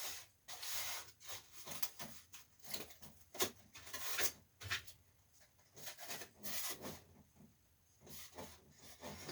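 Irregular rubbing and scraping from hands working over the casing of a window air-conditioner unit, a string of short noisy strokes with brief pauses.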